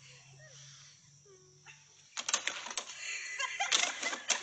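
A goat's hooves knocking and clattering on a wooden crate as it jumps onto it: a run of sharp knocks starting about halfway through.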